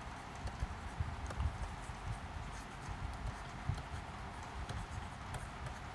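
Stylus writing on a tablet: irregular soft taps and knocks with faint clicks as the pen strokes out words.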